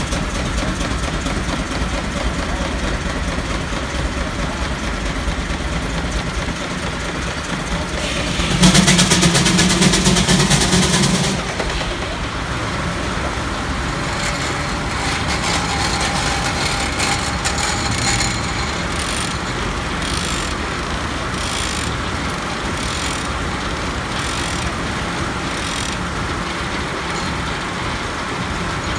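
A steam traction engine running, its flywheel turning a drive belt, with a louder stretch of about three seconds near a third of the way in. It is followed by a large circular-saw sawmill running, with a faint regular beat about once a second.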